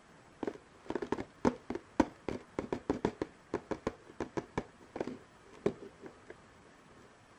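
Cardboard figurine box handled by hand: a string of irregular taps and clicks as fingers grip and shift the box, stopping a little after six seconds in.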